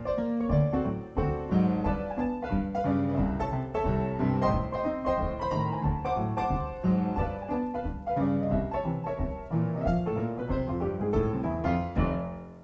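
Instrumental music: a busy melody of crisp, piano-like notes over a bass line, fading out near the end.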